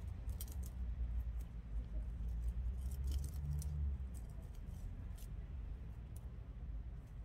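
Scattered small clicks and crackles of gloved fingers handling the climbing vine of a Dioscorea elephantipes and its dry brown leaves, over a low steady rumble.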